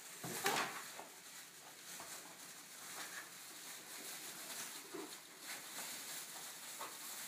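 A dog up on its hind legs against a kitchen counter, moving and scuffing: one short, louder, noisy sound about half a second in, then faint scuffs and clicks.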